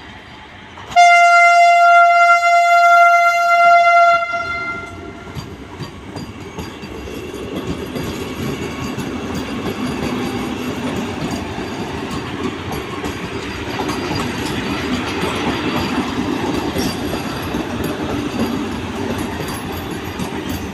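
Vande Bharat Express train sounding one long horn blast of about three seconds, a single steady note. Then the steady rumble of the train running on the rails, growing louder over several seconds.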